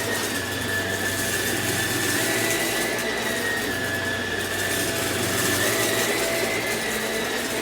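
Samsung CycloneForce upright vacuum cleaner running steadily, with a high motor whine that wavers slightly in pitch.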